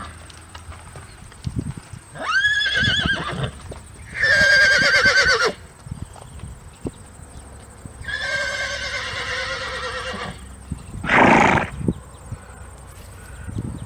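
Horse whinnying three times, each call high and quavering, followed by a short breathy blast about eleven seconds in.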